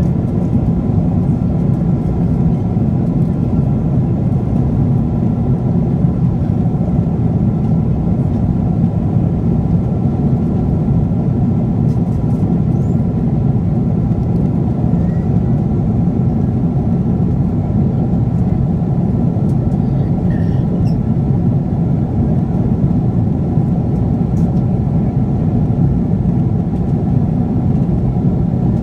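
Steady cabin roar of a Boeing 777-300ER in flight, heard from a window seat: engine and airflow noise, deepest and strongest low down, with a few faint steady tones above it.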